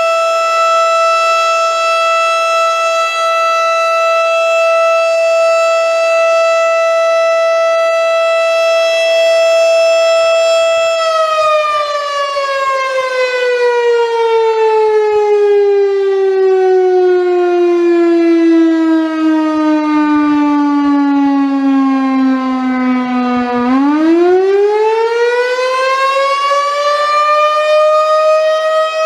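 Federal Signal STH-10 rotating electromechanical warning siren sounding: it holds a steady tone for about eleven seconds, then winds down slowly in pitch for about twelve seconds before spinning back up to full pitch near the end.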